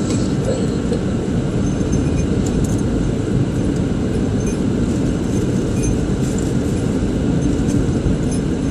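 Steady low rumble of a car's engine and tyres on the road, heard from inside the cabin while driving slowly in town traffic, with a few faint clicks and rattles.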